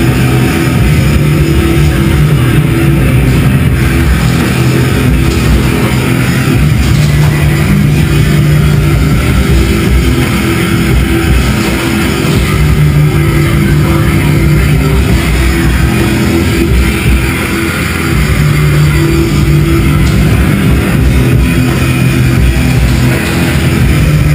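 Loud rock music with guitar and drums.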